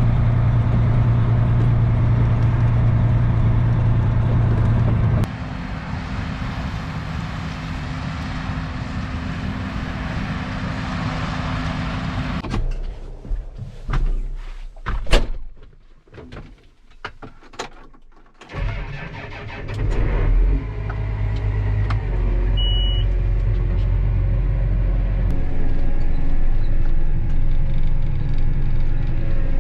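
Diesel engine of a heavy farm vehicle running steadily, its tone changing abruptly about five seconds in. Roughly halfway through the engine falls away to several seconds of clicks and knocks, then an engine runs again, with a short high beep about two-thirds of the way through.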